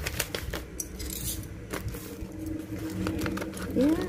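Brown wrapping paper and packing tape being torn and pulled off a parcel by hand: crackling, rustling paper with scattered sharp clicks. A voice starts humming near the end.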